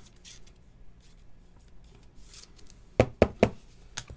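Plastic handling sounds of a trading card being slid into a rigid plastic toploader, with a quick run of three sharp clicks about three seconds in and one more near the end.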